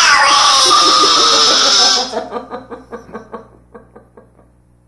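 A small child shrieking "Dimwit!" at the top of her voice, a piercing, high-pitched yell held for about two seconds, followed by a run of short laughing pulses, about four a second, that fade away.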